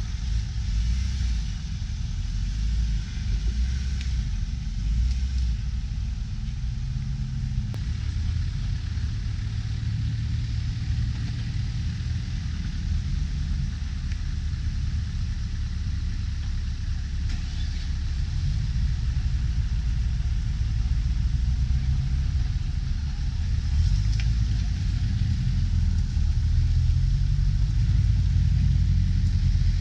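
Off-road vehicle running over rough ground: a steady low rumble that grows louder in the last third.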